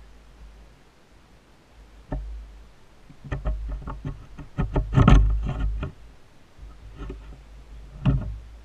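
Plastic clicks and knocks as the lid clamp ring of an Oase Filtoclear 15000 pond pressure filter is handled and prised open, a quick run of clicks in the middle with the loudest about five seconds in, and single knocks near the end, over a low rumble.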